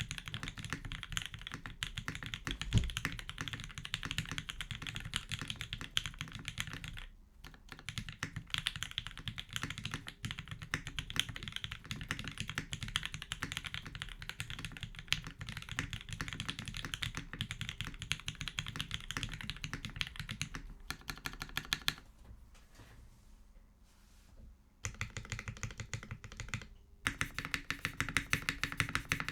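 Continuous fast typing on a mechanical keyboard with a brass plate, lubed linear switches (Tealios V2 housings with Gateron Black stems) and GMK keycaps: a dense stream of keystroke clacks, with brief pauses about seven seconds in and a lighter, sparser stretch a little before the end.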